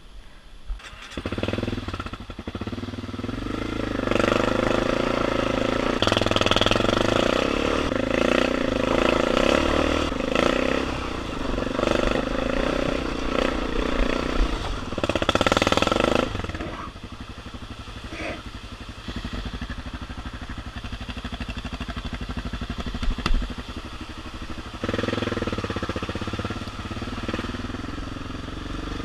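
BMW F650GS motorcycle engine running under load on a rough dirt track, coming in sharply about a second in and rising and falling with the throttle. It is loudest through the first half, drops to a quieter spell, then picks up again near the end, with one sharp knock about three-quarters of the way through.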